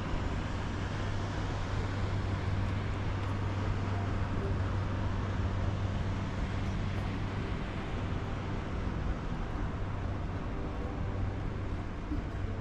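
A boat engine running at a steady drone, under a broad rushing hiss of wind and water.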